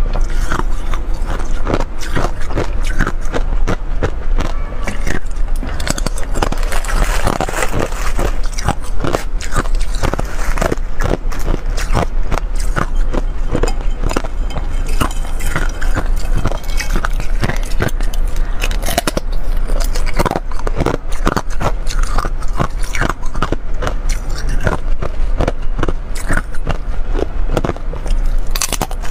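Clear ice being bitten and chewed close to a lapel microphone: a dense, continuous run of sharp cracks and crunches.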